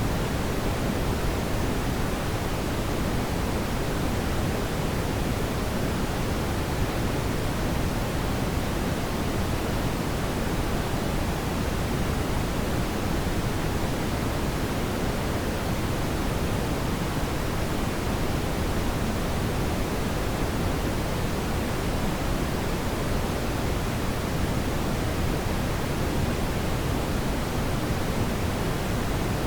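Steady brown noise: an even, deep hiss weighted toward the low end, with no changes, events or tones.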